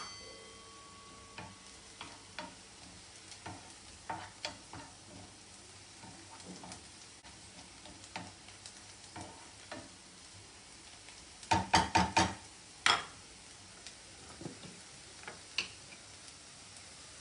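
Onions frying with a faint sizzle in a pan, stirred with a spoon that scrapes and taps against the metal. A sharp metallic clank with a brief ring comes right at the start, and a quick run of loud clatters comes about two-thirds of the way through.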